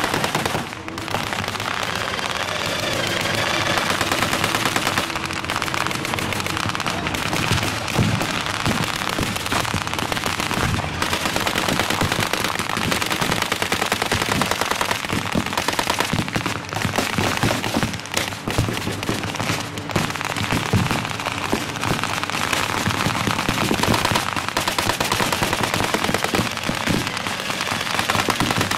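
Battle gunfire from blank-firing WWII weapons: rapid machine-gun bursts and rifle shots, nearly continuous and overlapping throughout.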